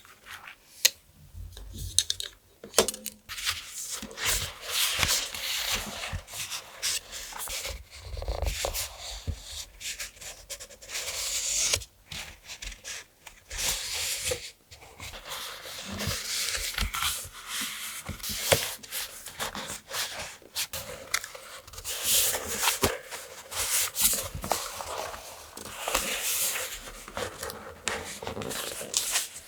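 Close-miked paper and craft materials being handled: irregular rustling and rubbing broken by many small taps and clicks.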